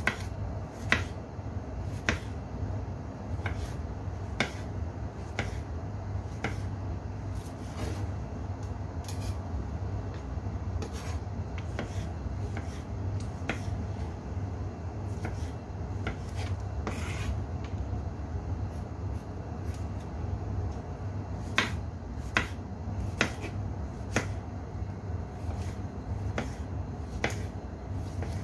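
Chef's knife dicing tomatoes on a wooden cutting board: the blade knocks on the board roughly once a second, with the sound of slicing between strokes. A steady low hum runs underneath.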